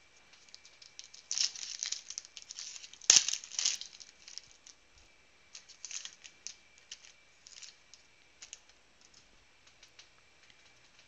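Foil wrapper of a Panini Prizm football card pack being torn open and crinkled, with dense crackling in the first few seconds and one sharp click a little after three seconds in. Then lighter, scattered crinkles and clicks as the wrapper is set down and the cards are handled.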